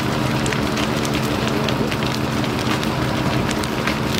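A house fire crackling and popping: many sharp snaps over a dense rushing noise. A steady engine hum runs underneath.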